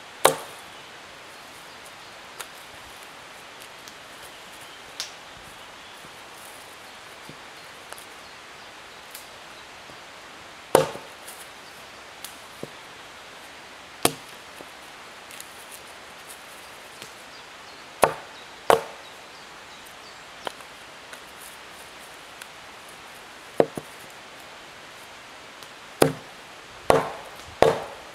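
Wood being chopped: sharp single strikes several seconds apart, coming quicker, about one a second, near the end.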